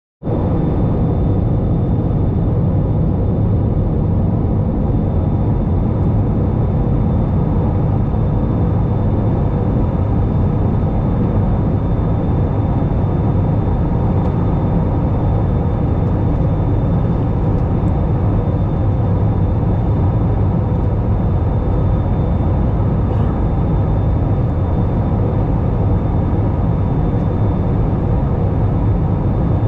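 Steady cabin noise of an Airbus A320 in flight: a low rumble of engines and airflow, with a thin steady high whine above it.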